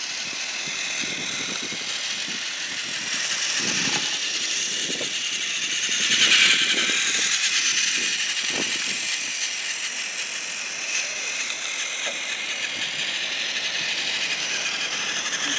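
Battery-powered Plarail toy train running along plastic track: the small motor and gearbox whirr and rattle, loudest about six seconds in as the train passes close.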